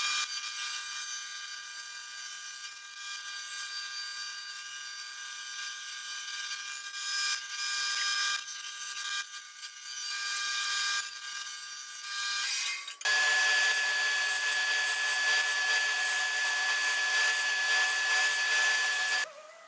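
Bandsaw running and cutting through a sheet of plywood, its sound rising and falling as the wood is fed. About thirteen seconds in it switches abruptly to a louder power tool with a steady high whine, a spinning sanding drum with a piece held against it.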